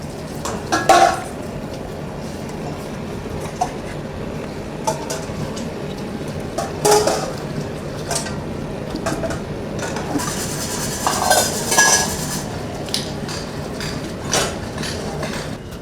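Copper vessels clinking and clanking in a coppersmith's tinning work: scattered metal knocks, some ringing briefly, with a few louder strikes about a second in, midway and near two-thirds through, over a steady workshop background noise.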